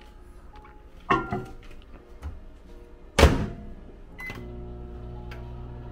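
A microwave oven being loaded and started: a clunk about a second in, the door shutting with a thump about three seconds in, then a short beep and the steady hum of the microwave running.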